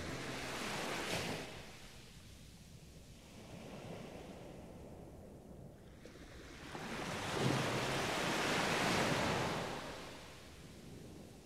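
Ocean surf washing onto a beach: a small swell of wave noise at the start, then a bigger wave from about seven seconds in that builds and fades away.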